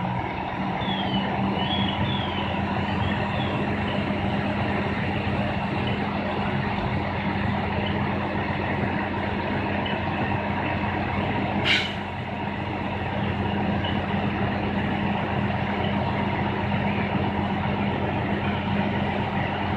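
Fire engine's diesel engine and pump running steadily with a low hum, with one short sharp hiss near the middle.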